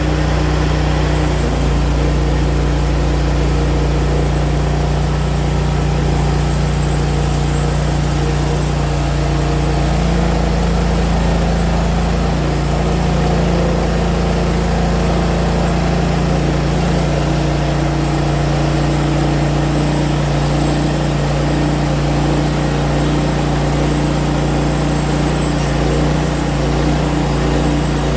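Portable sawmill's engine running steadily, its pitch shifting slightly a few times.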